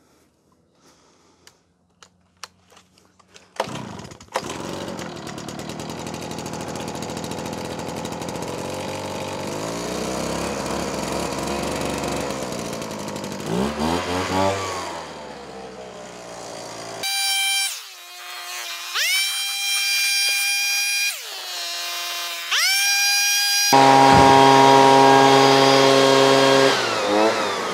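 Two-stroke handheld petrol leaf blower starting about four seconds in, then running and revving up and down as it blows lint and dust out of a clothes dryer cabinet. After a few light clicks of handling at the start, it runs steadily, with its pitch swinging about midway and again near the end.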